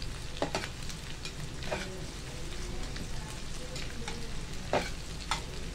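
Chopped onions and green chillies sizzling in hot oil in a steel pan as they fry toward golden, with a spatula stirring and scraping, giving a few sharp clicks against the pan.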